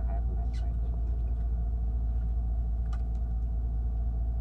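Fishing boat's engine running steadily at idle, low and even, with two brief clicks, about half a second and three seconds in.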